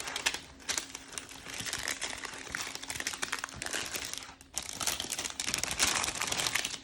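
Plastic packaging crinkling and crackling as it is handled and pulled off, with a brief lull about four and a half seconds in.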